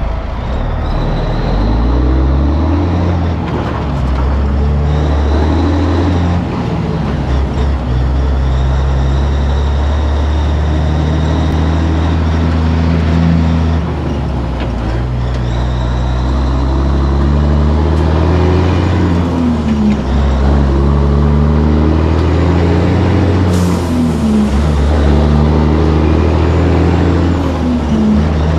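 Diesel semi truck running down the road, heard from inside the cab, its engine pitch stepping up and down as the speed changes.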